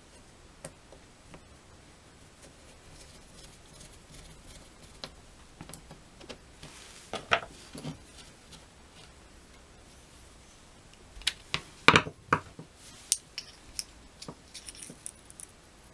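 Small metal clicks and taps from the parts of a Tillotson chainsaw carburetor being handled while its metering-lever fork and spring are fitted, with a cluster of louder clacks about halfway through and another about three-quarters through.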